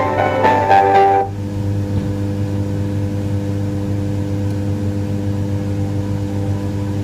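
Music from a small speaker cuts off abruptly about a second in and leaves a steady electrical hum with several overtones. The music drops out as the red light source is lifted off the optical PCB, breaking the optical link that feeds the speaker.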